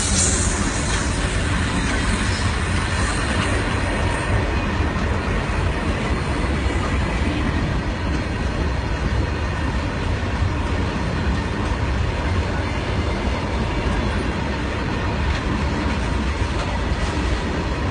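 A long goods train of open steel freight wagons rolling past close by, with a steady rumble and clatter of steel wheels on the rails.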